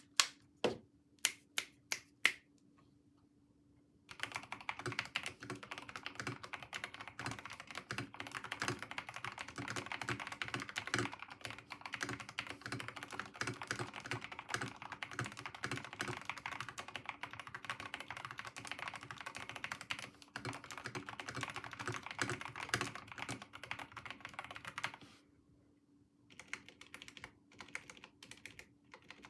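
Monsgeek MG75 mechanical keyboard being typed on. First come a handful of separate key presses and a short pause, then about twenty seconds of fast, continuous typing. After a brief stop near the end, a few lighter keystrokes follow.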